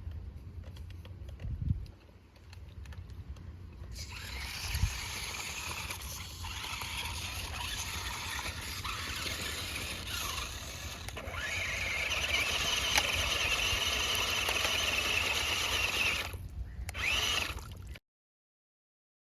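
RC car driving off-road, its motor whining and rising and falling in pitch over a steady rumble, loudest in the second half; the sound cuts out abruptly near the end.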